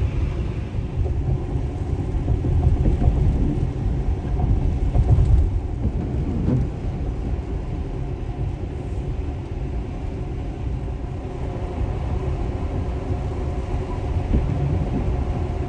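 Steady low rumble of tyre and road noise inside the cabin of a Tesla Model X driving on a snowy highway, with no engine note, swelling slightly a few seconds in.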